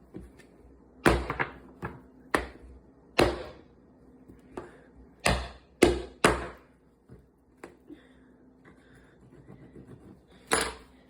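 Nutcracker clacking against a hard peach pit: a series of about eight sharp cracks and clicks, spaced irregularly.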